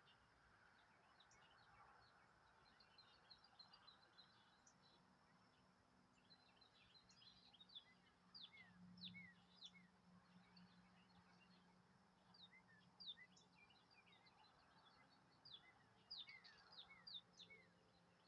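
Faint chirping of several small birds: many short, high calls and quick falling notes, busiest in the middle and near the end.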